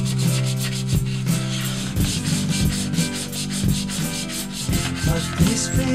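500-grit sandpaper rubbed by hand in quick back-and-forth strokes over the metal bell housing of a 1982 Royal Model 880, a steady rhythmic scratching; this is the finer sanding stage after 100 and 220 grit, taking out deep scratches.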